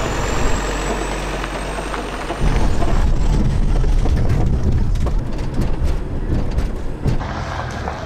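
Heavy vehicle engine rumble with road noise. A deep diesel rumble comes in sharply about two and a half seconds in and holds at a steady level.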